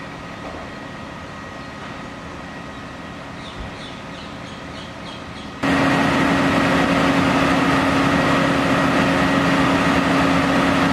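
A Mercedes-Benz fire engine's diesel engine running steadily with a constant droning hum, loud and close from about halfway through. Before that a quieter steady engine hum, with a few faint bird calls.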